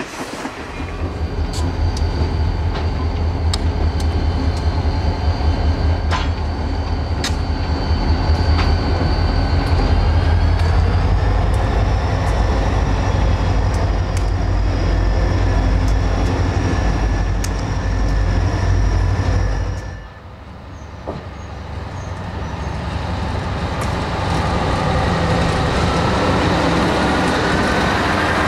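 Diesel freight locomotives running past with a heavy, steady engine rumble and a high whine, with scattered clanks from the train. About 20 s in the sound cuts away to another diesel locomotive, whose engine rises in pitch as it pulls tank cars.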